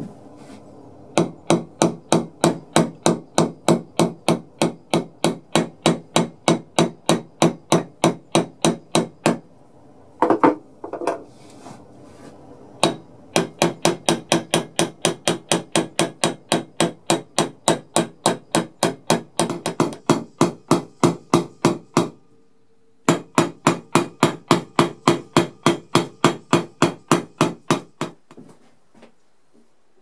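Small steel hammer striking the end of a brass rod set in a hole in a hardwood block, peening its tip out: a steady run of sharp taps at about three a second, broken by a pause about ten seconds in and a brief one past twenty seconds, and stopping a couple of seconds before the end.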